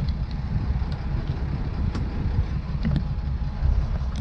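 Steady low rumble of wind buffeting the microphone, with a boat's engine running underneath and a few faint clicks.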